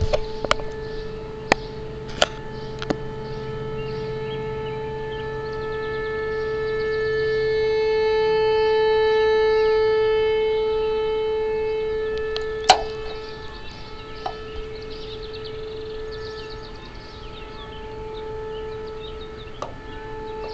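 Outdoor warning siren sounding a steady tone in a test. It swells louder toward the middle and fades again. A few sharp clicks come in the first three seconds and another one about two-thirds of the way through.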